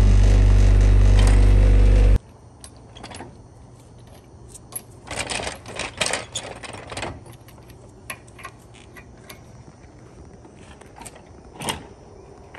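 A Honda Civic sedan's engine idling with a steady low drone and a rattle, which stops suddenly about two seconds in. After that come quieter, scattered metallic clinks and taps of hand tools being used at a car's front wheel.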